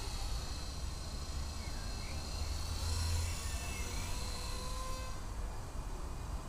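Blade 120 SR micro electric RC helicopter in flight, its motors and rotor giving a steady high-pitched whine over a low rumble.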